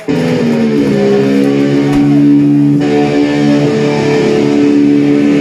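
Electric guitar and bass played loud through amplifiers: a chord struck sharply and left ringing, with the held notes changing about two and three seconds in.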